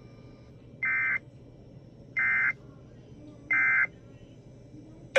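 Emergency Alert System end-of-message code: three short bursts of SAME digital data tones, each under half a second and about a second and a third apart, marking the end of the alert.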